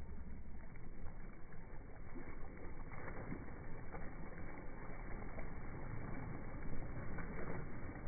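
Wind and small waves lapping against shoreline rocks: a steady rushing noise, with a few brief splashes.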